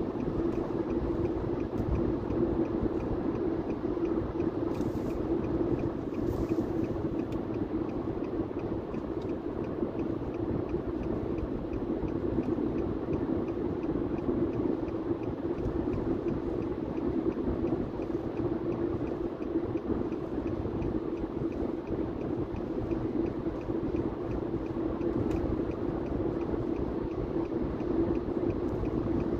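Steady road and engine noise of a car driving on a highway, heard inside the cabin: an even, unchanging hum.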